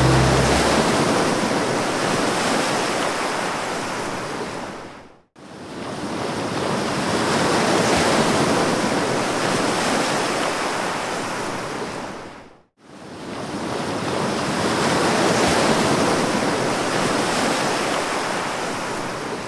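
Ocean surf: a wide rushing wash of water noise in three long swells, each rising and then slowly fading, with two brief cuts to silence about five and thirteen seconds in.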